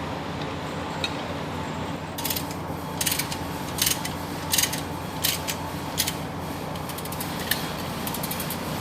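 Hand ratchet wrench clicking in irregular bursts as bolts are tightened on the truck's steering box, over a steady low hum. The clicking starts about two seconds in and comes faster near the end.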